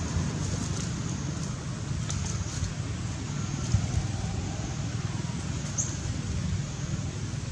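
Steady low outdoor rumble, with a few faint ticks and a short high chirp about three quarters of the way through.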